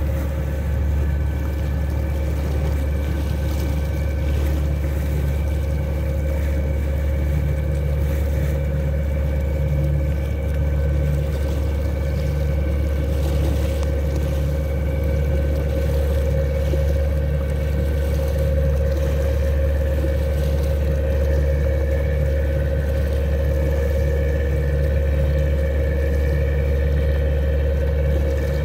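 Boat engine running steadily: a deep, even rumble with a constant hum above it.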